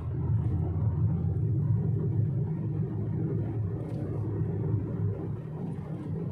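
Car driving along a rural road, heard from inside the car: a steady low rumble of road and engine noise.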